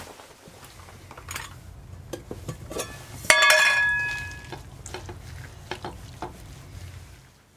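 Metal camp cookware clinking and scraping, with one loud ringing clang about three seconds in that rings on for about a second. Under it runs a steady low rumble that stops near the end.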